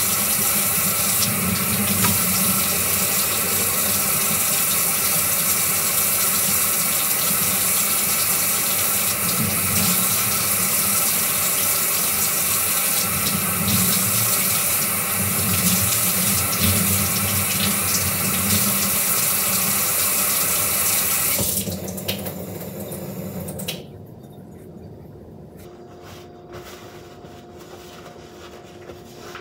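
Kitchen faucet running steadily into the sink while hands are washed under it. The water stops in two steps after about 22 seconds, leaving only quiet room sound.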